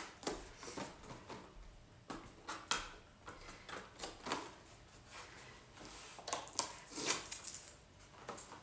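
A small cardboard box and a clear plastic packet being handled and opened: short, irregular rustles, crinkles and light knocks.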